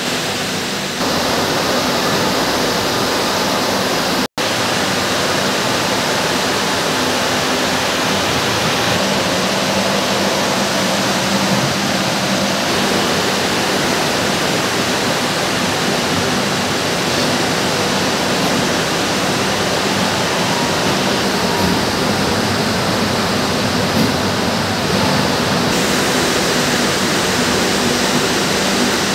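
Zinser 668 simplex (roving frame) and the surrounding spinning-mill machinery running: a loud, steady, rushing noise with a low hum underneath. The sound cuts out for an instant about four seconds in.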